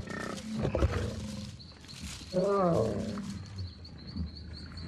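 Lions snarling and growling as they attack buffalo. There is a loud snarl about halfway through and a sharp thump a little under a second in.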